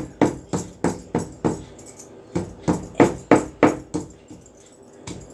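Stone pestle knocking and grinding against a flat grinding stone, crushing dried ginger into powder in quick repeated strokes, about three a second, with a short break about two seconds in.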